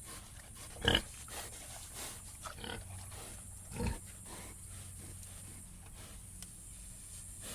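Pig grunting: two short grunts, about a second in and near four seconds, with a few fainter grunts between.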